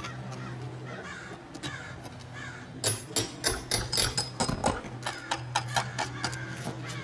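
Hand tool knocking and prying at asphalt ridge cap shingles to loosen their nails: a run of sharp, irregular taps and clicks starting about three seconds in, over a steady low hum.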